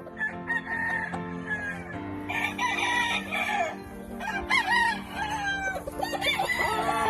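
Several gamefowl roosters crowing one after another, the crows overlapping from about two seconds in, over steady background music.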